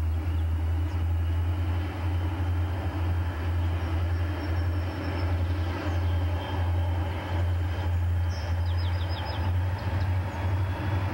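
Several Chessie System diesel locomotives working hard up a grade at high throttle, pulling a westbound freight: a steady deep engine rumble with a slight pulse as the locomotives come on.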